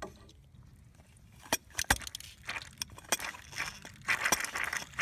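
Irregular sharp clicks, knocks and rattles of hands handling tools and parts, the loudest about two seconds in, turning into a denser rustling, hissy clatter over the last second or so.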